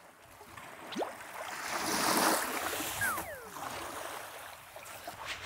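Small lake waves washing onto a pebble shore, the wash swelling about two seconds in and then ebbing. A few short sliding whistle-like tones sound over it: one rising about a second in, and two falling at about three seconds.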